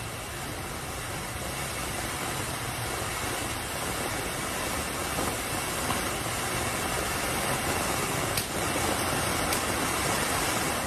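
Conic firework fountain burning: a steady rushing hiss of sparks that grows slightly louder, with two sharp pops a second apart near the end.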